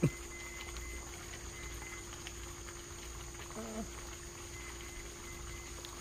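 Crickets chirping faintly over a steady hum.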